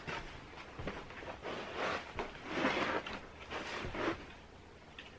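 Hands rubbing and smoothing wet clay-sand mortar into the seal along the edge of a ceramic glass cooktop: a string of irregular scraping, swishing strokes.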